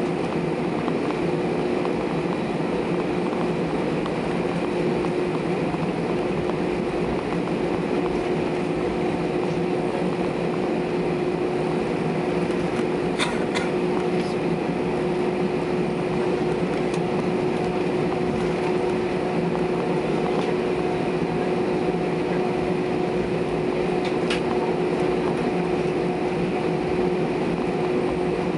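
Steady cabin noise of an Airbus A320 taxiing with its engines at low taxi thrust: an even drone with a constant mid-pitched hum, joined by a fainter, higher tone about a quarter of the way in.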